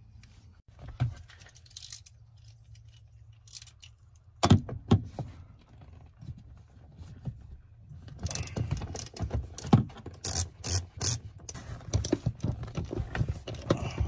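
Socket ratchet clicking as it backs out a 14 mm seat-mounting bolt on a 2002 Toyota Tundra's seat track, a few scattered metallic clinks at first, then rapid steady clicking through the second half.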